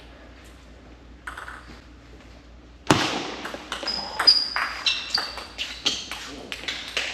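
Table tennis rally: after a quiet start, a sharp hit about three seconds in opens a quick run of clicking ball strikes off the rackets and table. A few short high squeaks, from shoes on the court floor, come among the hits.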